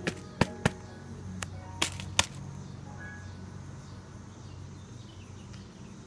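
Six sharp clicks in quick succession over the first two and a half seconds, with faint background music underneath.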